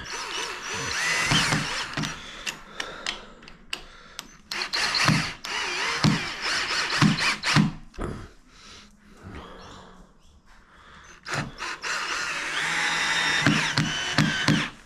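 Cordless drill-driver running in three stretches of a few seconds each, with clicks between, driving screws for door lock hardware.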